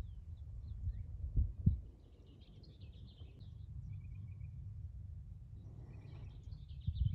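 Birds chirping and trilling over a low, uneven rumble, with a few stronger low thumps about a second and a half in and again near the end.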